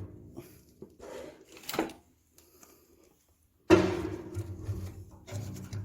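Split firewood being handled and set down, with a few wooden knocks and one loud clunk about two-thirds of the way in that fades out.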